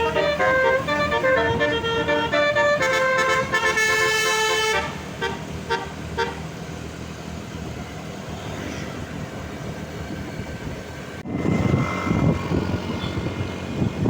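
Bus basuri horn, a multi-tone musical air horn, playing a stepping melody of several notes for about the first five seconds, then stopping. Quieter engine and traffic noise follows, and about eleven seconds in it switches abruptly to louder rumbling noise.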